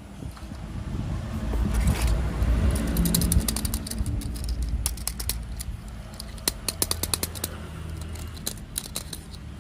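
Plastic toy train parts clicking and rattling as they are handled, over a low hum that swells for a few seconds near the start.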